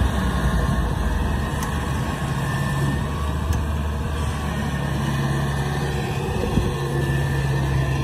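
Kubota DC-70 Plus combine harvester's diesel engine running with a steady low drone as the machine drives across the rice paddy.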